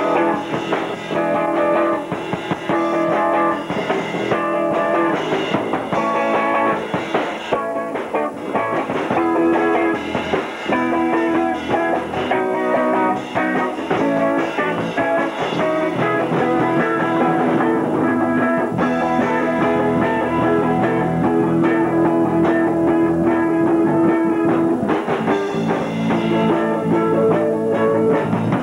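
Small rock band playing a song with electric guitars and a drum kit.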